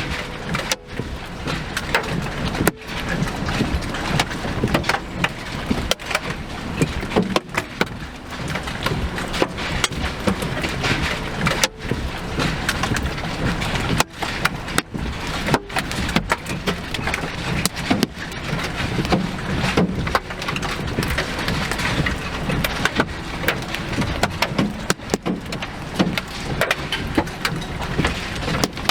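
Loud, dense noise of heavy rain and wind against a vehicle, broken by many brief dropouts.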